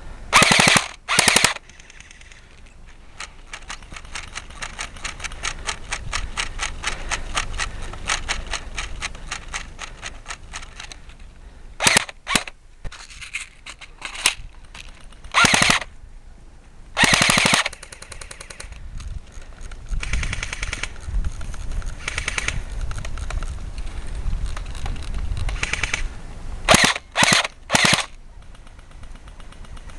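Airsoft rifles firing automatic bursts: several short, loud bursts near the start, in the middle and near the end, with a long run of quieter rapid fire from about three to eleven seconds in.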